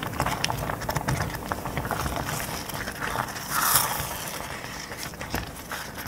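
Thickening cherry filling, cherries and juice with cornstarch, bubbling and popping in a stainless steel pot as a silicone spatula stirs it: many small irregular pops and clicks, with a brief louder hiss a little after halfway. The changed, thicker bubbling is the sign that the cornstarch has begun to set the filling.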